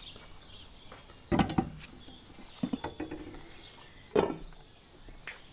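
Faint birdsong chirping in the background, with several sharp knocks and clatters: a pair about a second and a half in, a few lighter clicks around three seconds in, and another loud knock about four seconds in.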